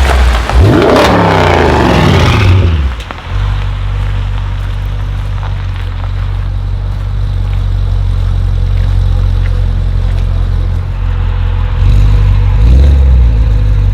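Audi RS6 Avant C7's twin-turbo V8 with a Milltek exhaust revving up and falling back over the first few seconds, then idling steadily, with a brief low surge near the end.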